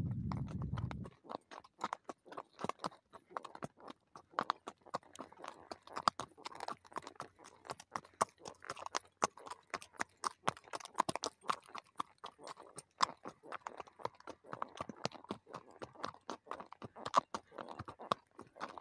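Horse hooves clicking and crunching on a dry, stony dirt track, an irregular run of hoof-falls. A low wind rumble on the microphone stops about a second in.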